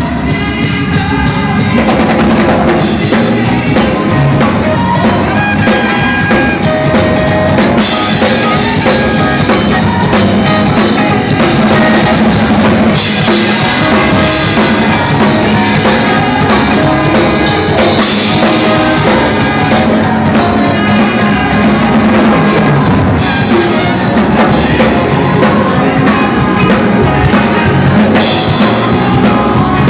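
Gospel church band music driven by a drum kit, with bass drum, snare and recurring cymbal crashes over keyboard and bass, steady and loud.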